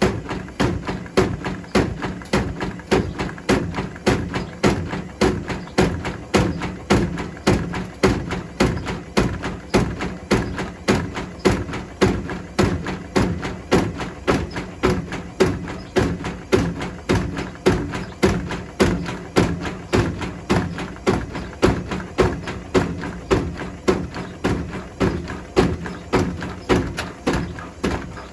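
Bricks tumbling and thudding against the drum of a Hotpoint Smart Tech washing machine as it turns on a wool wash: a steady run of heavy knocks, about one and a half a second.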